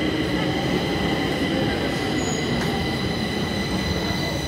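Stockholm metro train moving along an underground platform: a steady rumble of wheels on rail with a continuous high-pitched whine or squeal over it.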